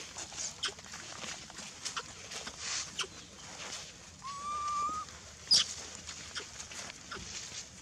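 A young macaque's thin, whistle-like coo about four seconds in, held about a second. Scattered rustles and clicks of dry leaf litter run around it, and a sharp brief squeak follows just after the coo and is the loudest sound.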